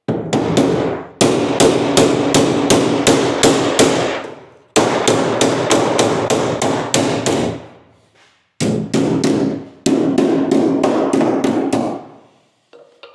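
Hammer blows on the metal rear body panel of a Land Rover Series 3 tub as it is beaten into shape. There are three runs of rapid strikes at about three a second, and each blow leaves the panel ringing.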